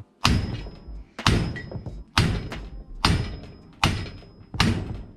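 Six hammer blows, about one a second, on a punch driving a stuck roll pin out of a shifter assembly's aluminum housing, each blow ringing briefly.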